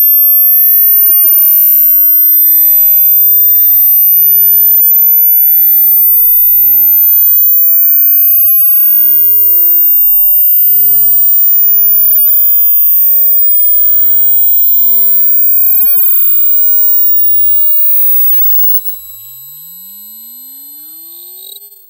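Speaker burn-in test signal: a pure sine tone sweeping slowly upward through the very high treble, with fainter tones gliding up and down beneath it. It fades over the last several seconds and cuts off just before the end.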